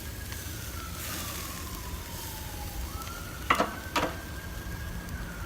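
A siren wailing, its pitch sliding slowly down over about three seconds, then back up and down again, over the faint sizzle of steaks on a charcoal grill. Two sharp clacks come about three and a half and four seconds in.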